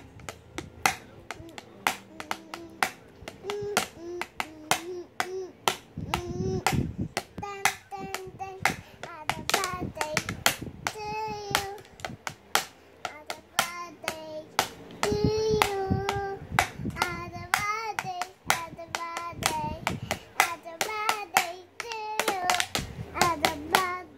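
Child hitting a plastic toy drum set with drumsticks, quick uneven strikes throughout, while singing along in a high child's voice.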